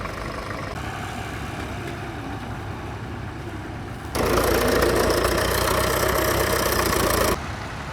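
Old tractor engine running steadily. About four seconds in, a much louder, harsher engine sound starts suddenly and cuts off abruptly about three seconds later.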